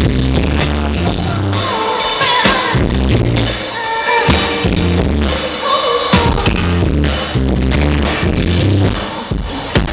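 Loud live band music from a concert PA: a pounding bass line, drum hits and a singing voice, heard crowded and rough the way a small camcorder's microphone picks up a loud stage.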